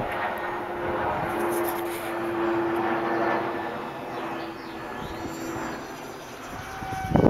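Electric motor and propeller of a small SkyAngel Bf-109 RC model warbird in flight on a 4S battery: a steady whine that drifts slightly in pitch, over a low rumbling noise, with a loud rush of noise near the end.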